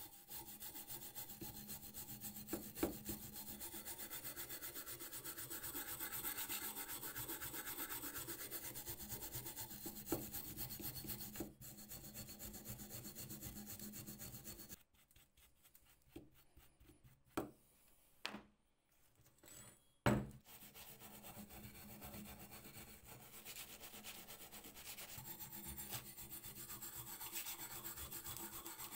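Hand wire brush scrubbing surface rust off a steel axe head in rapid back-and-forth strokes. About halfway through, the scrubbing stops for several seconds, broken by a few sharp knocks, then starts again.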